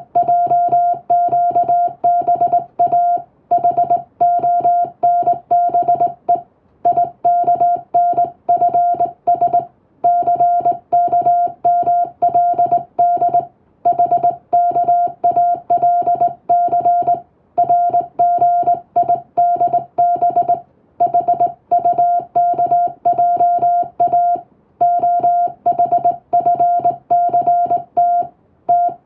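Morse code sent by hand in English: one steady beep keyed rapidly on and off into dots and dashes, with short pauses between words.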